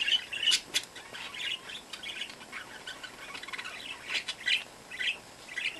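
Newborn Chihuahua puppies squeaking while they nurse: many short, high-pitched chirps at irregular moments.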